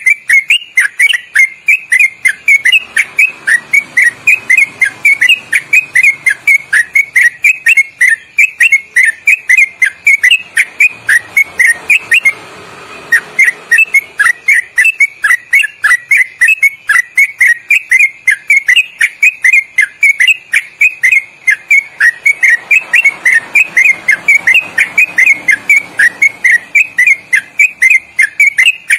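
Yellow-vented bulbul (trucukan) singing its long, loud rolling song ('ropelan'): quick, slightly tuneful whistled notes at about three to four a second, with a brief break about twelve seconds in.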